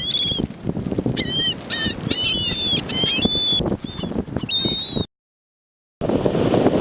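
A flock of gulls calling over and over, many short high-pitched cries overlapping, over heavy wind rumbling on the microphone. The sound cuts out completely for about a second near the end, then comes back as wind noise.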